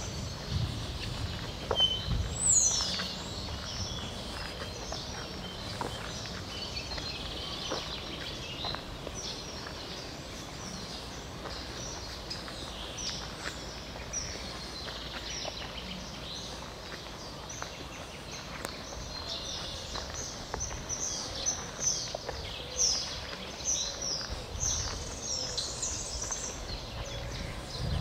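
Spring dawn chorus: many songbirds singing at once, a dense mix of short high chirps, trills and whistles, one of them a quick falling whistle about two seconds in. A few low thumps sound near the start and near the end.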